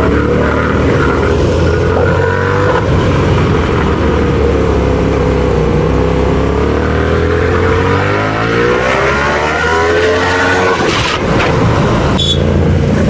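Motorcycle engine running, its pitch dipping and rising again about halfway through as it revs or changes speed.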